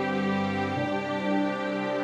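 Background music: slow instrumental with long held chords that move to a new chord a little under a second in.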